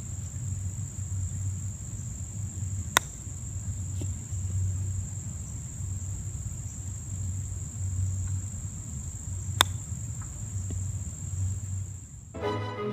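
Two crisp clicks, about six and a half seconds apart, as a face-on chipping club strikes golf balls cleanly off bunker sand. A steady high insect drone and a low rumble run underneath, and music comes in near the end.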